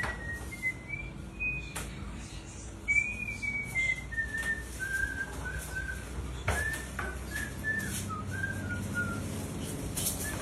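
A person whistling a slow, wandering tune in short gliding notes, with a few light knocks in between.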